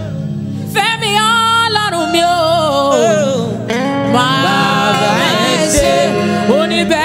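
Live gospel music: a woman's lead voice singing long, bending runs, with male backing singers joining in, over steady held chords. The singing swells about a second in.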